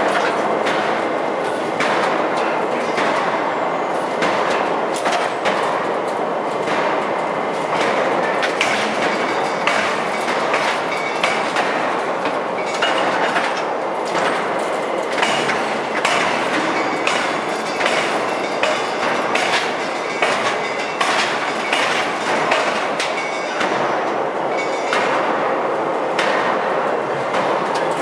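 Forging machine working a red-hot nickel-alloy bar: loud, continuous machinery noise packed with rapid, irregular metal knocks, over a faint steady high whine.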